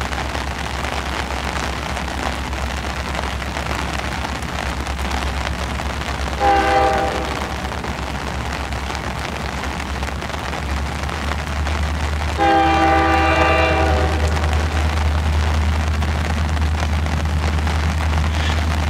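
Horn of an approaching freight or passenger locomotive: a short blast about six and a half seconds in, then a longer one of about a second and a half near twelve and a half seconds. Under it, steady hiss of heavy rain and a low rumble.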